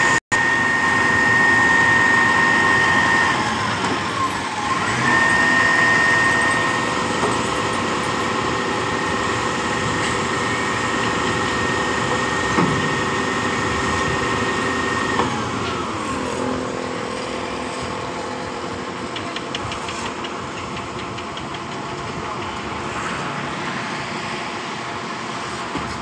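Truck-mounted concrete pump's diesel engine and hydraulic pump running at raised speed with a steady high whine while the outrigger legs are worked. The whine drops in pitch a few seconds in, rises again, then winds down about halfway through to a lower, quieter running.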